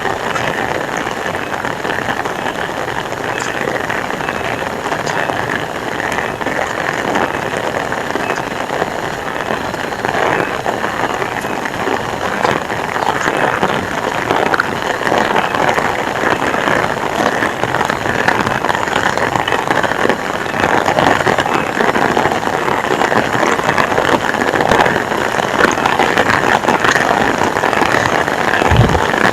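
Heavy rain falling and pattering on surfaces, a dense steady hiss full of individual drop ticks that grows slightly louder after about ten seconds. A brief low thump comes near the end.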